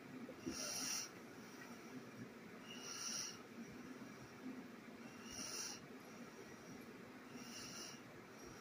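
Soft, regular breathing: a brief hiss about every two and a half seconds, four breaths in all.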